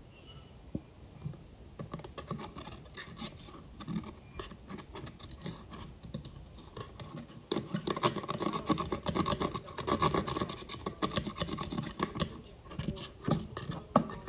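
Pressed eyeshadow being scraped out of the pans of a makeup palette with a utensil: quick, rapid scratching strokes, lighter at first and thickest in the middle stretch, then thinning out near the end.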